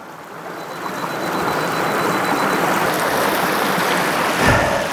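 Rushing water of a river cascade: a steady wash of noise that swells up over the first second or two and then holds. A brief low thump comes near the end.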